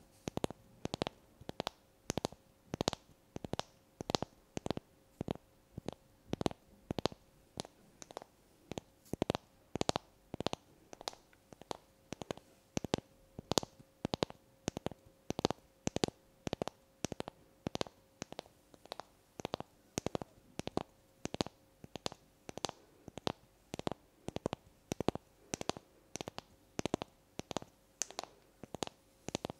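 Long fingernails tapping on a small wooden block: a steady run of crisp taps, about two a second, some in quick pairs.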